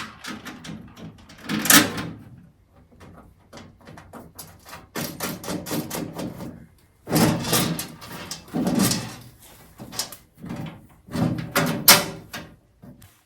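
Steel welding-cart parts clanking and rattling as they are handled and fitted together, with sharp metallic knocks about two seconds in and near the end.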